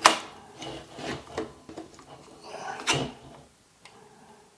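AR-15 pistol parts being handled during assembly: a sharp click right at the start and another about three seconds in, with light rubbing, scraping and small knocks between.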